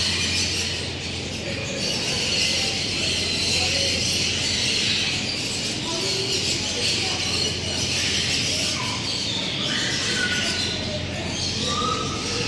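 A dense chorus of many birds chirping and calling together, with short whistled calls rising above it here and there.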